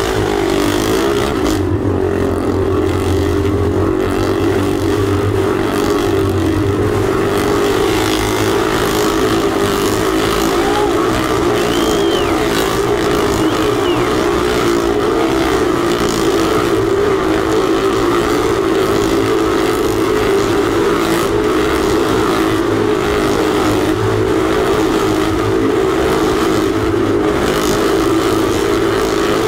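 Motorcycle engines running together at a steady high pitch, with no let-up, as the riders circle inside a steel-mesh globe of death.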